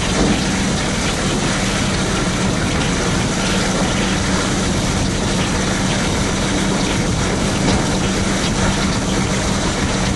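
Class 42 Warship diesel-hydraulic locomotive on the move, heard from the cab window: a steady engine drone under a heavy rush of wind over the microphone. The loco is working on only one of its two engines, and that engine is failing.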